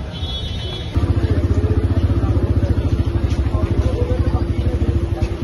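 A small engine running steadily close by, cutting in abruptly about a second in with a fast, even chugging and a steady hum over it. Faint voices sound beneath it.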